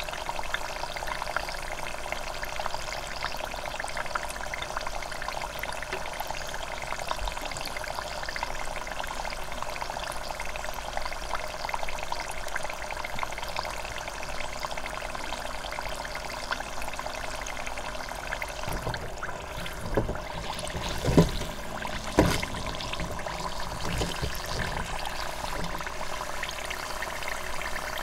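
Spring roll deep-frying in hot oil in an electric deep fryer: a steady crackling sizzle of bubbling oil. A few louder knocks come about twenty seconds in.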